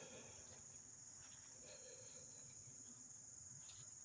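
Faint, steady, high-pitched chorus of insects such as crickets, one unbroken drone.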